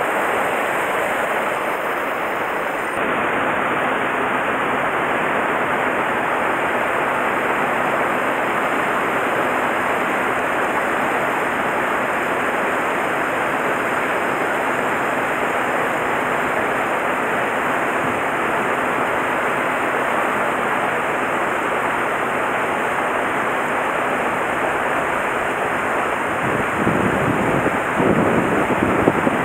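Mountain stream rushing over rocks, a steady water noise. Near the end, wind buffets the microphone with low rumbles.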